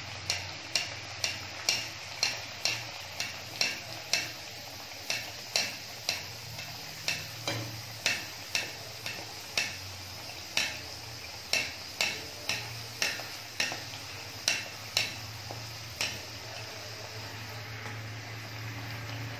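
A ragi vada deep-frying in a kadhai of oil, sizzling steadily, while a wire mesh skimmer clinks against the pan about twice a second. The clinking stops about three-quarters of the way through, leaving only the sizzle.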